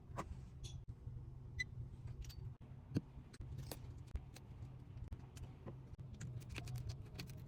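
Scattered light clicks and taps from small tools and parts being handled during an iPad screen repair, over a low steady hum.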